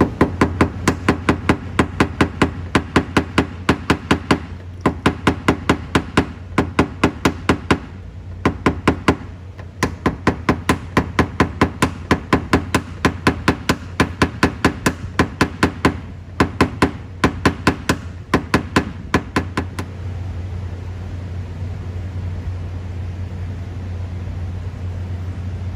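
Quick light hammer taps on a paintless dent repair tap-down tool held against a car's steel body panel, about five a second in runs with short pauses, knocking down raised metal along a body line dent. The tapping stops about three-quarters of the way through, leaving a steady low hum.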